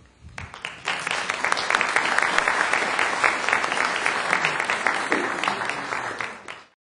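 Audience applauding. The applause starts about half a second in, builds within a second, holds steady, and cuts off suddenly near the end.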